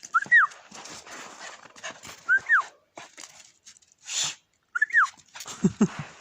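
A person whistling a two-note recall call three times, each a short rising note followed by a longer falling one, calling a pet to come. A brief low sound comes near the end.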